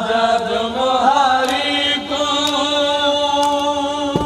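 Male voice chanting a noha, an unaccompanied Shia mourning lament, holding long drawn-out notes with a slight waver and sliding to a new note about two seconds in.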